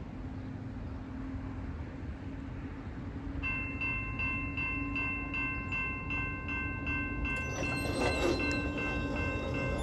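General Signals type 2 electronic crossing bell starting up about three and a half seconds in, ringing about twice a second: the crossing has activated for an approaching train. Around eight seconds in, a louder, brief noise joins the ringing.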